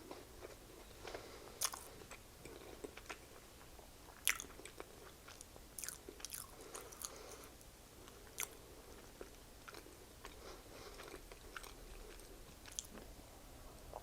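A person chewing a mouthful of chicken sandwich close to the microphone, with faint wet mouth clicks and smacks scattered irregularly through it.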